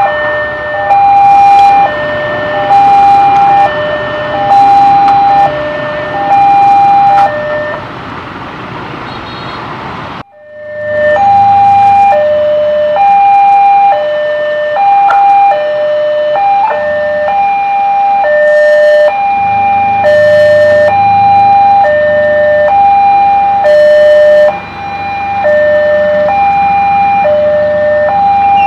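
Railway level-crossing warning alarm sounding its electronic two-tone signal, a steady alternating high and low tone that repeats without pause. It breaks off briefly about ten seconds in. After that, vehicle engines run underneath it.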